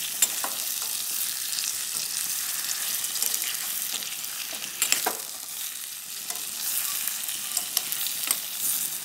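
Sliced tomatoes and onions sizzling as they fry in a steel pan, stirred with a metal spoon that scrapes and clicks against the pan, with one sharper knock about five seconds in.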